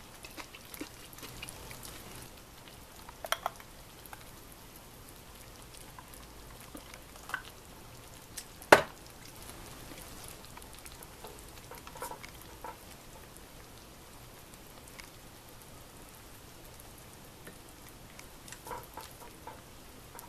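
Tantan gyoza hot pot simmering in a clay pot with a faint steady sizzle, with scattered small clinks and taps and one sharp click about nine seconds in.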